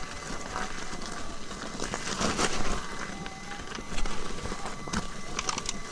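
Electric unicycle rolling up a loose rocky trail: the tyre crunches and crackles over gravel and stones, with louder crunches about two seconds in and again at four seconds, over a thin steady whine.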